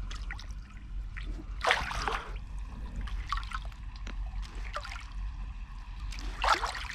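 Shallow seawater trickling and lapping over rock, with small drips and two louder splashy washes, about two seconds in and near the end.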